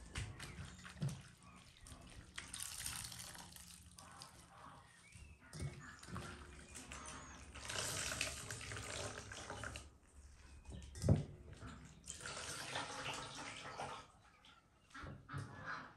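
Chopped wet greens squeezed by hand, the juice pouring and splashing into an enamel basin in several spells of a second or two each. There is one sharp thump a little past halfway.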